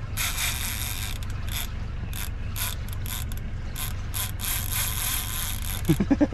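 Conventional fishing reel ratcheting in spurts as a hooked fish pulls against the heavily bent rod, with a longer run at the start and another about four and a half seconds in. A steady low rumble lies underneath, and a man's voice comes in briefly near the end.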